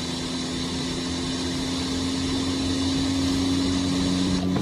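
Car engine held at high revs driving a wheel and tire spinning up to extreme speed, a steady tone that creeps slowly higher.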